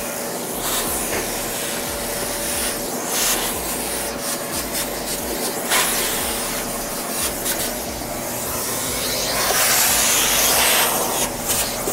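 Shop vacuum running, its hose nozzle sucking sawdust and debris off a wooden stair tread: a steady rushing hiss with scattered clicks as bits rattle up the hose. The suction gets louder for a moment near the end.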